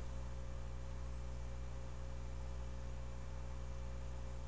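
Steady low electrical mains hum, with a faint hiss under it.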